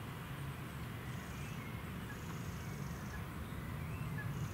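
Steady low rumble of wind on the microphone, with a few faint short bird chirps.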